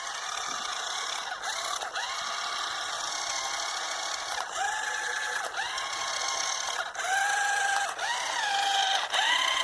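Electric motor of a toy RC car whining as the throttle is pulsed, its pitch jumping up and levelling off several times. The wheels are spinning with little traction on ice.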